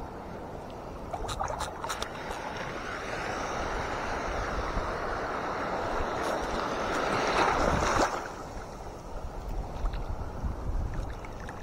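Shallow sea water washing and sloshing close by. The wash builds over several seconds and stops abruptly about eight seconds in, with a few sharp clicks of handling about a second or two in.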